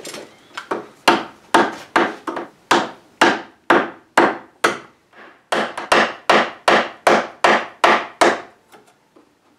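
A wide steel chisel pares and shaves old cupboard wood in a steady run of short strokes, about two a second, with a brief pause midway. Each stroke starts sharply and fades off. The wood is being cut away to take down the end grain the crown molding rocks on, so the molding will sit flat.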